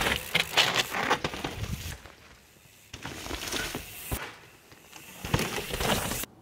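Electric mountain bike's tyres rolling and crunching over a dirt and rock trail, with rattling clicks from the bike, in three loud stretches. A sharp knock comes about four seconds in, and the sound cuts off suddenly near the end.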